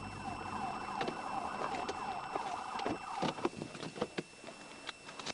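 Police car siren sounding in a fast warble, cutting off about three seconds in, followed by scattered clicks and knocks.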